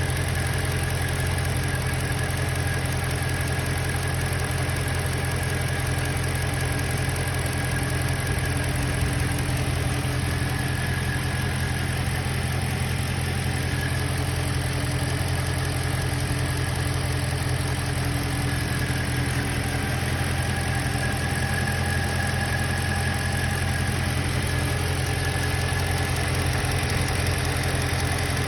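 BMW M3 engine running steadily, with no change in revs and a faint steady high whine on top: the strange noise its owner is recording.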